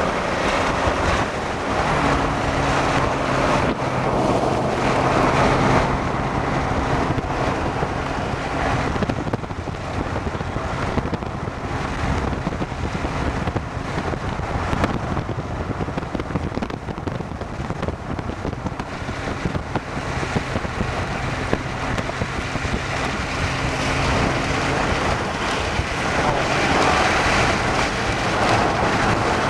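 Car noise with wind rushing over the microphone, with a steady low engine hum that comes in twice and fades out again.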